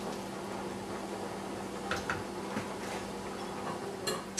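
Steady low hum with faint background hiss, and a few light clinks of a utensil against the stainless steel soup pot, about two seconds in and again near the end.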